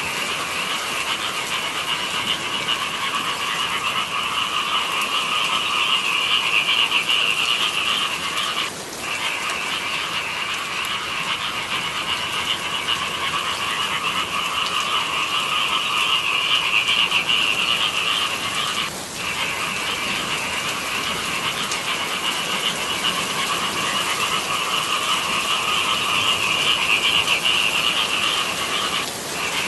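Dense chorus of many frogs calling together in a steady, unbroken wall of croaks, dropping out briefly three times about ten seconds apart.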